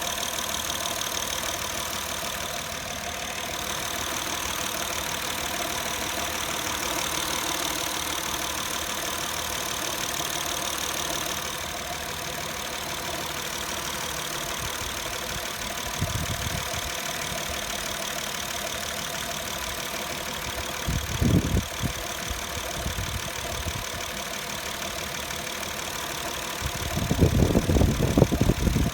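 Acura TL with its engine running at idle, a steady sound carrying several constant pitched tones: the strange noise the owner is recording. A louder low rumble comes briefly about 21 seconds in and again near the end.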